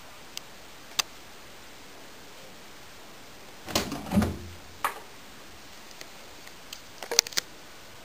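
Door of a Candy GO4 front-loading washing machine being opened at the end of a cycle: two light clicks, then the door pulled open with a clunk and rattle about four seconds in. A few light clicks and knocks follow near the end as a hand reaches into the steel drum.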